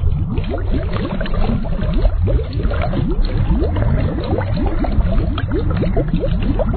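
Water bubbling and gurgling steadily: a dense, continuous run of short rising blips over a low rumble.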